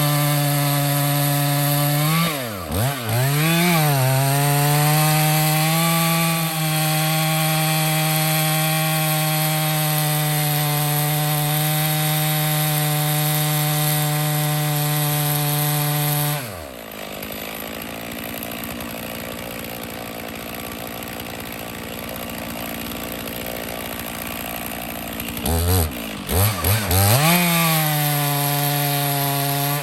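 Stihl two-stroke chainsaw running at full throttle in a felling cut, its revs dipping and recovering twice a couple of seconds in. It drops to idle a bit past halfway, then is blipped up in a few quick revs and goes back to full speed near the end.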